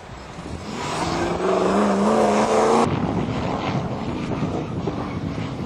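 Engine of an off-road racing 4x4 revving hard under load, its note rising steadily in pitch, then cutting off suddenly about three seconds in. A rougher, noisier engine sound with wind on the microphone follows.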